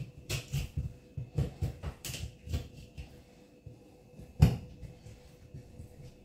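Boning knife cutting and scraping along the rib bones of a raw pork belly on a stainless steel table, in irregular short knocks and scrapes, with one sharper knock about four seconds in.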